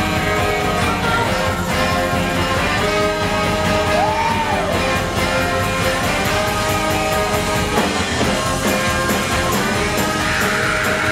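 Live soul band playing on stage: electric guitars, bass, drums, keyboard and saxophone, with a singer fronting it.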